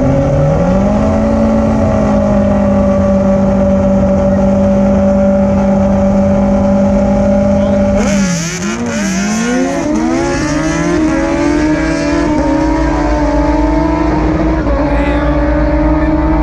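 Drag-racing sport motorcycles holding their engines at steady high revs on the start line, then launching about eight seconds in. After the launch the engine note dips and climbs several times as they pull away down the strip, then settles into a steady, slowly rising note.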